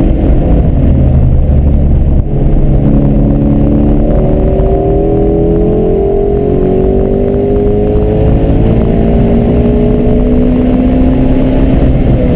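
Ford Shelby GT350's 5.2-litre flat-plane-crank V8 heard from inside the cabin on track. After a brief break about two seconds in, the engine's pitch climbs steadily as the car accelerates.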